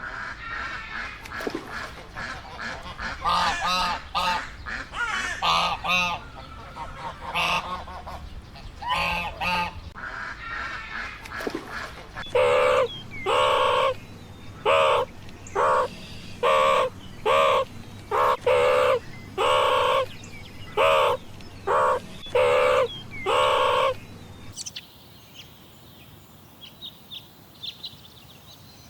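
Animal calls: about ten seconds of irregular pitched calls, then a run of loud, evenly spaced calls a little more than one a second for about twelve seconds, then faint chirping near the end.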